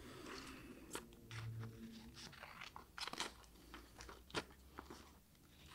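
Scissors cutting strips into a folded sheet of paper: a few faint, irregular snips.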